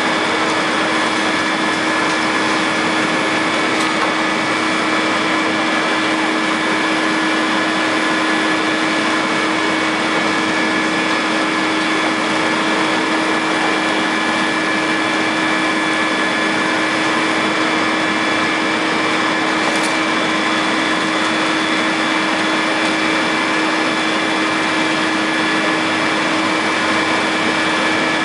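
Caterpillar 330C hydraulic excavator running at a steady engine speed, an even drone with a steady high whine and no distinct impacts.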